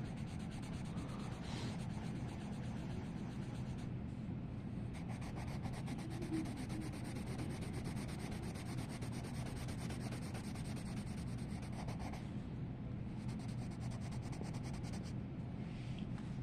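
Colored pencil shading rapidly back and forth on coloring-book paper, a continuous scratchy rubbing.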